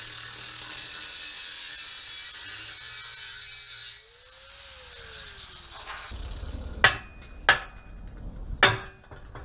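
Angle grinder cutting through the steel of a Chevy C10 front crossmember, a steady hiss; about four seconds in the cut stops and the grinder's whine winds down. Then three sharp hammer blows on the steel crossmember, each ringing briefly.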